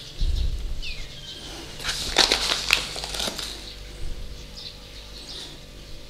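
Hands turning raw chicken breasts on a metal baking tray and sprinkling seasoning over them: a low thump just after the start, then a burst of quick rustling clicks about two to three seconds in. Faint bird chirps in the background.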